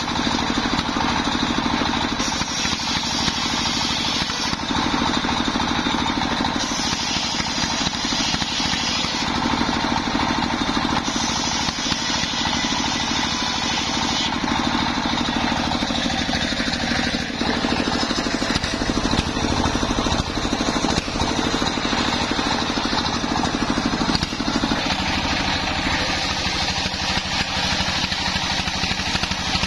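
Stationary single-cylinder diesel engine running steadily, belt-driving a homemade table circular saw whose blade rips through planks of waru (sea hibiscus) wood. The sawing noise comes and goes in stretches as the boards are fed through, over the constant engine beat.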